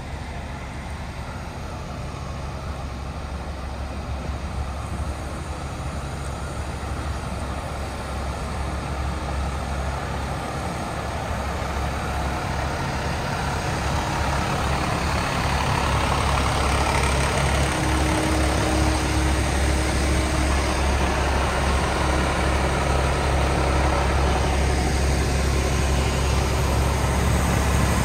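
Idling fire truck diesel engines, a steady low hum that grows louder toward the end.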